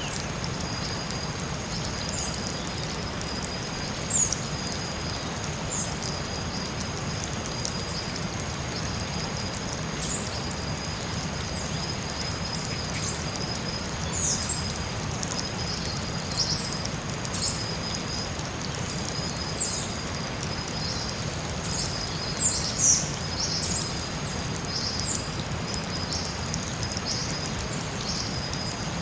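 Forest soundscape: a steady hiss like rain or running water, with two continuous high insect tones, one of them slightly pulsing, and scattered short, high bird chirps, a pair of louder ones near the end.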